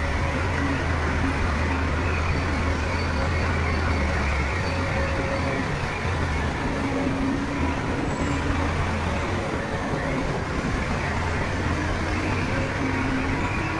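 Bulldozer's diesel engine running steadily under work, a low drone over a dense mechanical clatter; the drone shifts in pitch about four and a half seconds in.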